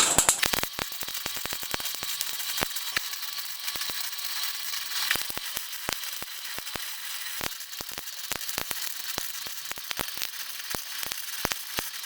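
Electric welding arc crackling and spitting as steel is welded: a dense, irregular run of sharp clicks, loudest in the first half second.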